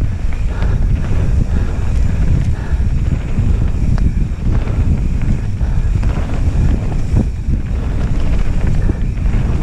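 Wind buffeting the camera microphone as a mountain bike descends a dirt trail at speed, with a steady low rumble from the tyres and a few light knocks and rattles over bumps.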